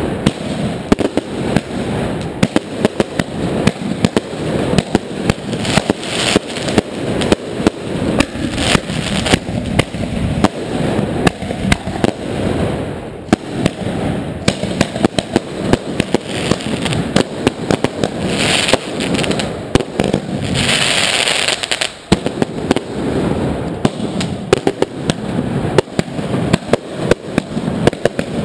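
Fireworks going off in a dense, continuous barrage: firecracker bangs and rocket explosions overlapping, with a few short bursts of hissing.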